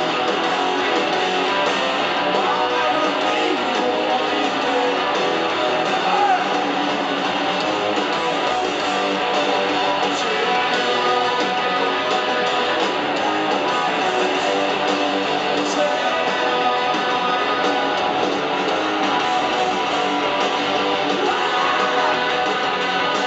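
Rock band playing live at full volume: electric guitars and a drum kit in a steady, unbroken wall of sound, heard from the audience in an arena.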